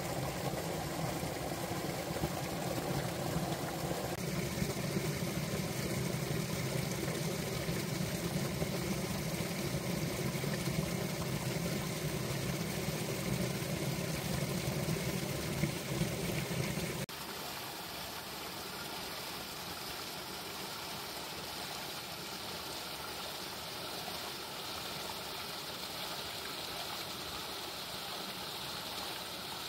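Mountain stream flowing under and around ice, with a steady low, deep gurgle for a little over half the time. About 17 seconds in it changes suddenly to the brighter, hissier rush of a small cascade splashing over rocks.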